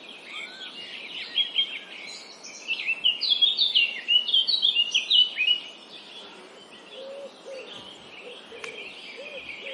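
Several small birds chirping and singing together over a steady background hiss, with a dense flurry of song in the middle. A lower call repeats several times near the end.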